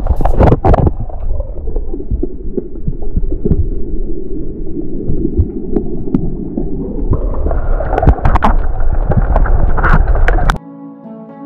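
Underwater water noise picked up by a GoPro camera in its housing: a dense, muffled low rumble with scattered clicks and knocks, turning brighter about seven seconds in. It cuts off suddenly near the end, where music with held notes begins.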